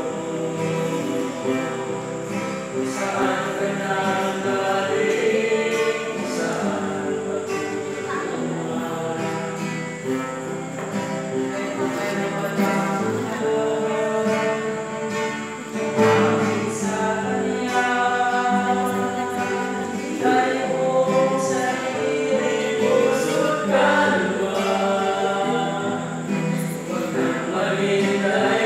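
Four male voices singing a Filipino gospel song together, accompanied by an acoustic guitar.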